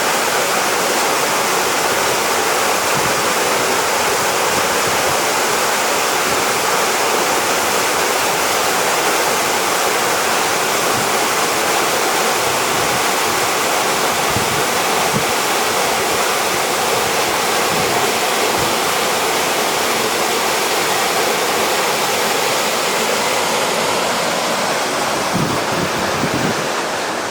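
Steady rush of a desert canyon waterfall pouring over rock into a pool, a dense even hiss that eases slightly near the end.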